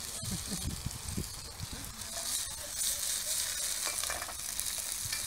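Chopped vegetables sizzling in a hot steel wok over a gas burner, being stir-fried and pushed around with a metal spatula, with a few low knocks in the first couple of seconds.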